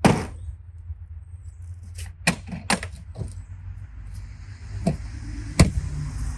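Metal tools being handled and set down: a string of sharp clinks and knocks, the loudest at the very start, a cluster of several in the middle and two more near the end, over a steady low hum.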